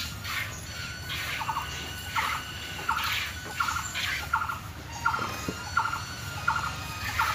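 Hand milking a cow: jets of milk squirting into a pail in a steady rhythm, about one squirt every 0.7 seconds, each a short high-pitched hiss.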